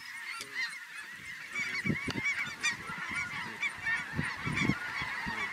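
A large flock of snow geese calling, many overlapping high, short honks at once. Wind buffets the microphone in gusts from about two seconds in.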